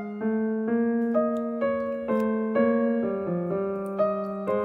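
Background piano music, gentle electric-piano-style notes struck at an even pace of about two a second.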